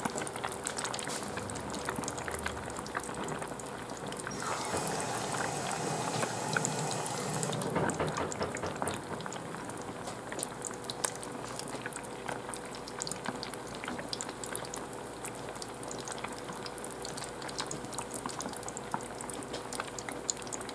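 Starch-coated fish pieces deep-frying in a pot of oil: a steady crackling sizzle of many small pops. About four seconds in, a louder rushing hiss joins for about three seconds.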